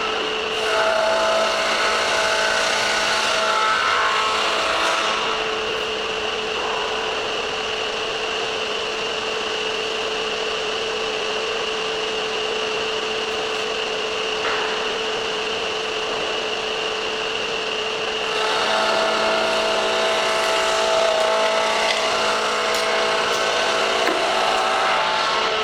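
Belt cylinder sander with an inflatable drum running with a steady whine. Twice, from about a second in to about five seconds and again from about eighteen seconds on, a workpiece is pressed against the sanding belt, adding a rough rasping rub.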